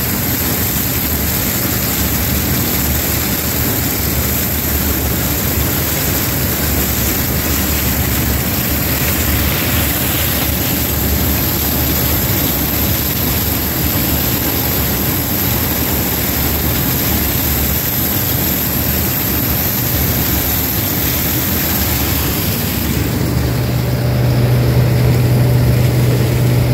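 Combine harvester running steadily while harvesting corn, a continuous machine drone. Near the end a strong low hum comes in and the high hiss falls away.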